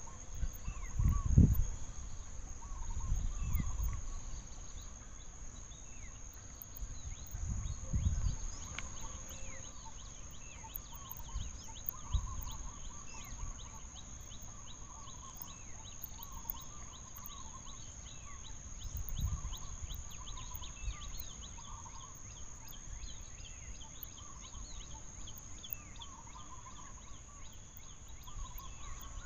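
Forest ambience: a steady high insect drone with many short chirping and warbling animal calls repeating around it, and a few low rumbles, the strongest in the first few seconds.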